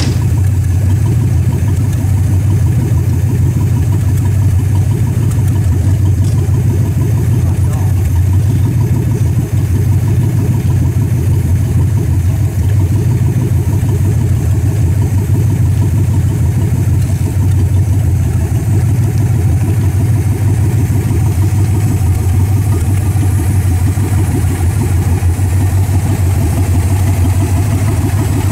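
1964 Dodge Polara 500's V8 engine idling steadily.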